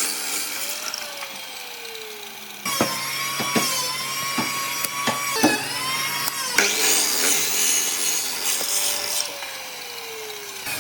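Woodworking tool sounds: stretches of rough sawing or rubbing noise on wood. About a third of the way in there is an abrupt switch to a steady high-pitched whine, like a power tool running, with several sharp knocks over it. It gives way to the rough noise again near the middle.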